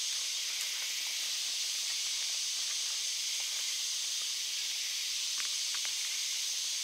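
A steady, high-pitched insect drone, typical of cicadas calling in the bush, with a few faint clicks about five seconds in.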